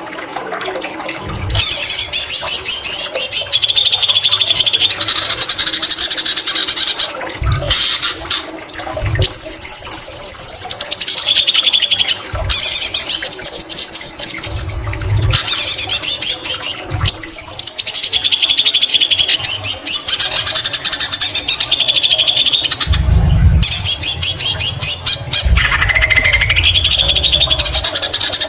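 White-rumped shama (murai batu) singing continuously and loudly: fast repeated trilled phrases alternate with high whistled notes, a song filled in with mimicry of the greater green leafbird (cucak ijo). A few low thumps come through at intervals, the strongest about two-thirds of the way in.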